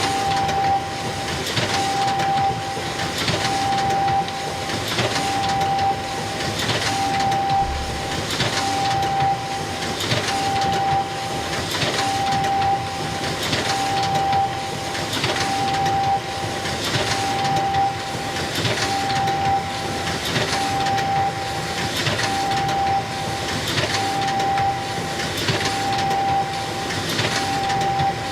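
Xerox photocopier running continuously, a mechanical whir with a swish and a short steady beep-like tone repeating about once a second.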